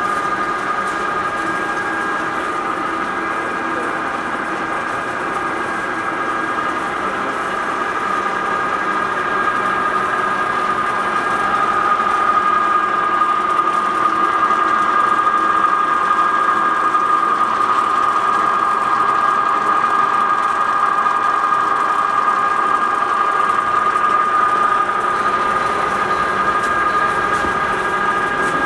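American Tool Works engine lathe running idle under power, the chuck turning without a cut. The headstock gearing gives a steady whine with several constant pitches over the drive motor's hum, and it grows somewhat louder partway through.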